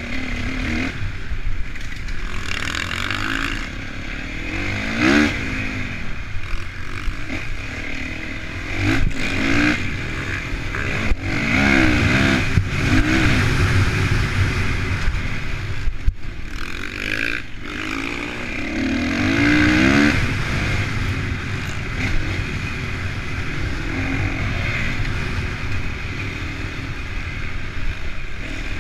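Honda CRF450 motocross bike's single-cylinder four-stroke engine at close range, its revs rising and falling over and over as it is ridden hard around a dirt track. The sound drops briefly a couple of times past the middle.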